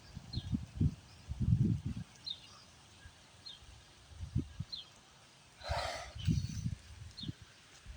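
Wind buffeting the phone's microphone in uneven low gusts as a thunderstorm moves in. A short, high chirp repeats about once a second, and a brief hissing rush comes about six seconds in.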